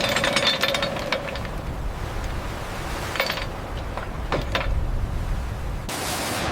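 A steady low rumble with scattered sharp knocks and clicks: a cluster just after the start, more at about three seconds and around four and a half seconds. A rushing noise starts near the end.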